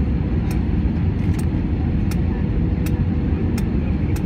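Steady cabin noise of a four-engine Airbus A340 airliner in flight on approach: a deep, even rumble of engines and airflow heard from inside the cabin, with a faint steady hum. Light, faint ticks come about every three quarters of a second.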